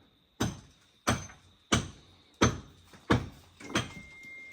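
Hammer blows struck in a steady rhythm, a little under one and a half blows a second, each a sharp knock that dies away quickly.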